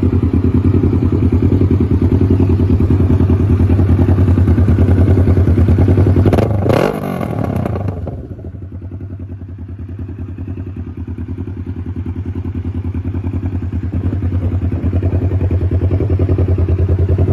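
Kawasaki Ninja 650's parallel-twin engine idling steadily with an even pulsing beat. About six seconds in there is a brief rush of noise, and then the engine sound drops and slowly builds back up.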